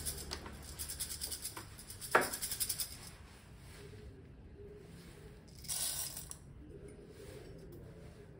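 Ground coffee rattling in a plastic grinder dosing cup as it is handled and shaken, with one sharp knock about two seconds in. After that, quieter handling, with a brief rustle a little past the halfway point.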